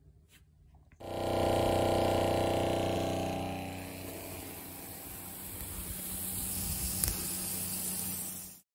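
ATV-mounted 12V sprayer running and spraying. A steady mechanical drone starts about a second in and gives way to the hiss of liquid spraying from the nozzle. It cuts off suddenly near the end.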